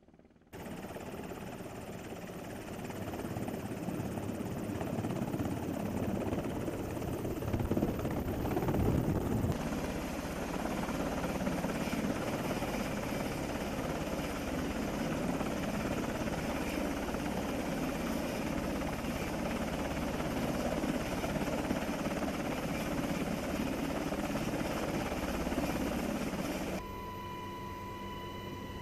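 Helicopter running close by: dense, steady rotor and turbine noise that changes abruptly about ten seconds in. Near the end it drops to the quieter cabin noise of a helicopter in flight, with a steady whine.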